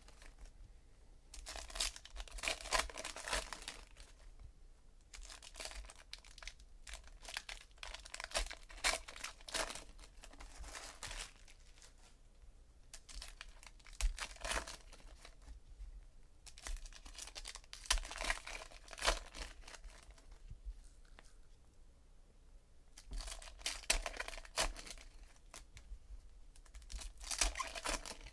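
Foil wrappers of 2017 Donruss Optic baseball card packs being torn open and crinkled by hand, one pack after another, in bursts every few seconds.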